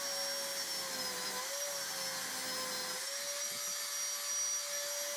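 Electric belt file running with a steady whine as it sands the ends of wooden table legs level, the pitch dipping briefly about a second and a half in and again around three seconds.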